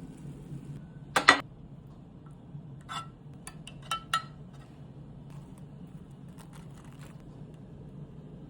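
Kitchen dishes and utensils clinking and knocking: one loud knock about a second in, then a few lighter clinks around three and four seconds in, over a low steady hum.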